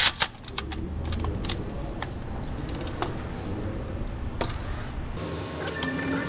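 Scattered light clicks and knocks of hand tools and bolts while the water pump mounting bolts are removed from a HEMI V8, with a brief low hum about a second in. About five seconds in, the background changes abruptly and steady held tones begin.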